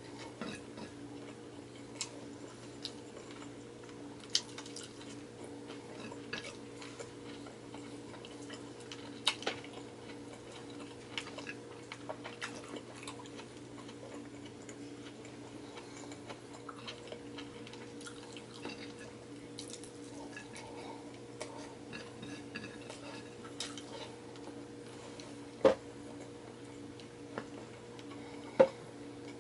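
Close-miked eating sounds of a person eating rice and stewed beef by hand: scattered small wet clicks and smacks of chewing and of fingers picking food off a plate, over a steady low hum. Two sharper clicks stand out near the end.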